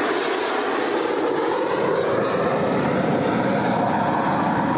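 Jet engine noise from a formation of KAI T-50B jets of the Black Eagles aerobatic team in flight: a steady, even rush with no distinct tones.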